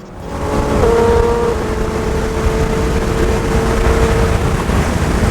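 A car at high highway speed: a steady rush of wind and road noise with a held engine note, swelling up just after the start.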